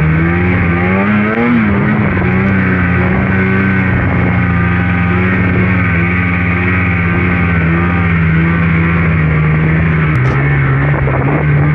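Polaris RMK Khaos two-stroke snowmobile engine running steadily under load while the sled ploughs through deep powder, its pitch climbing briefly about a second in and dropping a step near the end.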